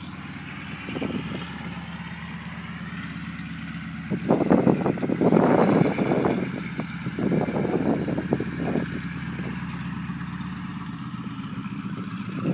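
Nanchang CJ-6A's nine-cylinder radial engine running steadily at a low, even speed, with louder gusts of noise from about four to nine seconds in.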